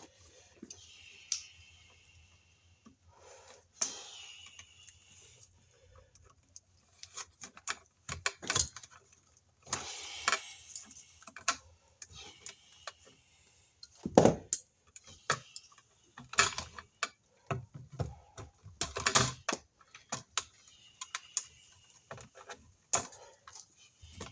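Hand cutters snipping away debris around wiring: an irregular run of sharp clicks and snips mixed with short bursts of rustling.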